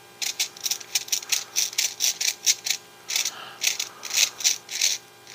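Small plastic RC crawler axle parts being worked together by hand: a quick, uneven run of short scratchy rubs and clicks, with a brief pause near the middle.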